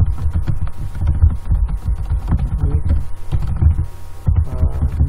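Fast typing on a computer keyboard, picked up mostly as quick dull thumps through the desk with sharper key clicks over them. A brief murmured voice comes in about halfway and again near the end.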